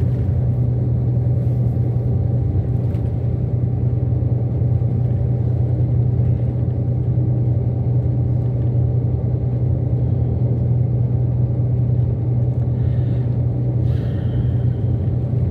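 Steady low rumble of road and engine noise heard from inside a moving road vehicle at constant speed.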